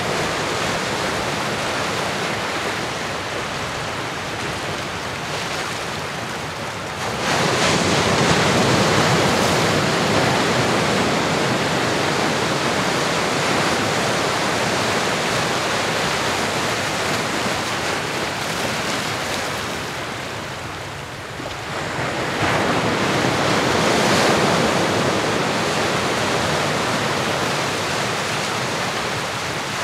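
Ocean surf: a steady wash of waves. One wave surges in suddenly about seven seconds in, and another builds and breaks a little after twenty seconds.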